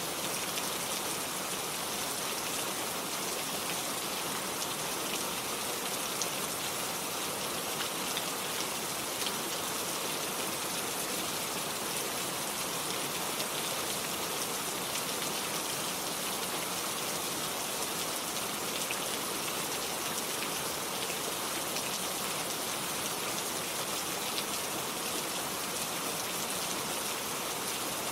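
Steady rain falling, an even hiss with faint scattered drop ticks and no change in intensity.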